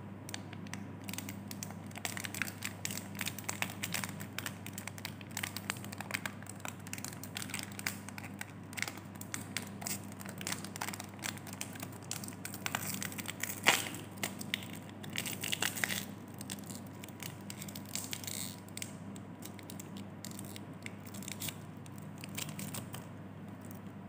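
Plastic lollipop wrapper crinkling and tearing as it is peeled off a Double Pop chocolate caramel lollipop by hand. There is a dense run of crackles, with one sharp loud crack a little past halfway.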